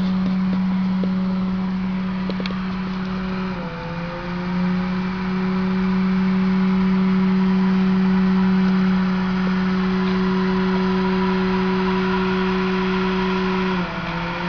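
Steady hum of running laboratory equipment, a low even drone with overtones. It dips briefly in pitch about four seconds in and again near the end. A few faint clicks come in the first few seconds.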